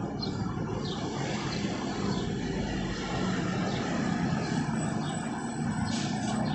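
Steady low rumble of street traffic, engines running without any one vehicle standing out.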